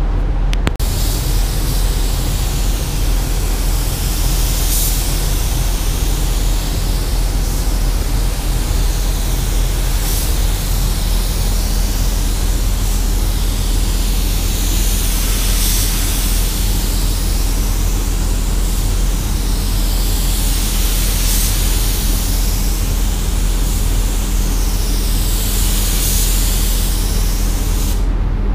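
DeVilbiss gravity-feed spray gun hissing steadily as compressed air atomises primer onto the car's panels. The hiss starts just under a second in, swells and fades every few seconds, and breaks off briefly near the end, over a steady low hum.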